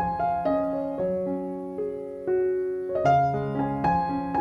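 Background piano music: a melody of sustained notes over held lower notes, a new note starting every half second or so.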